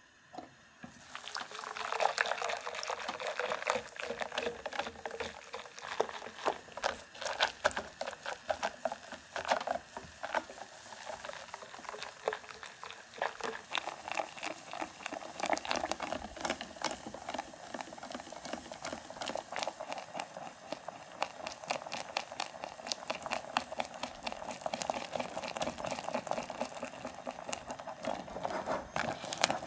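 Wire whisk beating custard cream in a stainless-steel saucepan on the heat, starting about a second in: rapid, continuous clicking and scraping of the wires on the pan with wet sloshing. The custard is thickening as it cooks.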